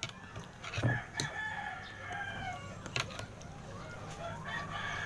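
A rooster crowing in the background: one long call of about a second and a half, with a second call starting near the end. A thump about a second in and a few sharp clicks.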